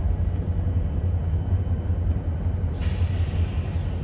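Steady low rumble, with a sudden hiss of air brakes releasing about three seconds in that fades away over a second or so.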